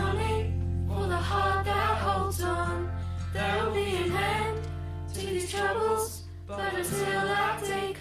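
Worship song: voices singing drawn-out phrases over a steady held bass accompaniment.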